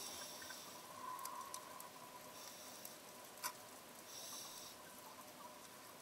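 Midnight parrotfish biting at the reef with its beak underwater: faint short crunches and scrapes, the sharpest about three and a half seconds in, over a low hiss with scattered clicks and a faint steady hum.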